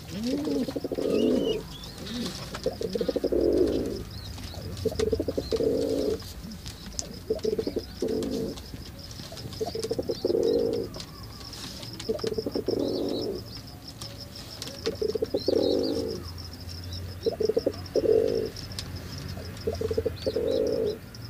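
Domestic pigeons cooing in repeated low bouts of about a second each, roughly one every two seconds.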